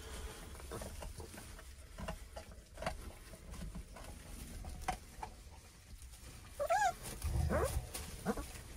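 Three-week-old Great Pyrenees puppies play-fighting in pine wood chips. There is soft rustling and scratching at first, then a few high whines and yelps from the puppies, bending up and down in pitch, near the end.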